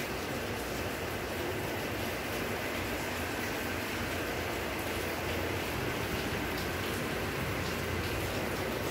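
Steady background noise: an even hiss with a low rumble underneath, with no distinct events.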